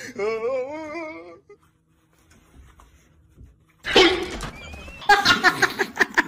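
A cat's drawn-out, wavering yowl that fades out about a second and a half in. After a short lull come two loud, rough, noisy outbursts, the first carrying a brief thin whistling tone.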